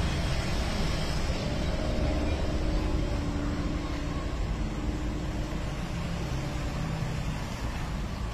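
Steady low rumbling and grinding of a traditional chekku oil mill, its wooden pestle turning round in a stone mortar through crushed oilseed paste.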